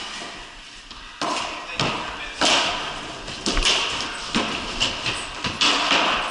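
Hockey sticks knocking against the ball, the concrete floor and each other during play around the net. A string of sharp clacks and thuds starts about a second in, each with a short echo off the wooden walls.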